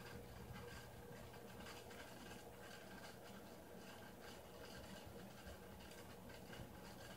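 Near silence: a faint steady low hum with faint scratchy rustling.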